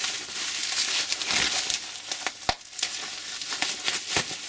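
Packaging being rustled and crinkled while a tool is unwrapped, with a few sharp knocks and clicks from handling.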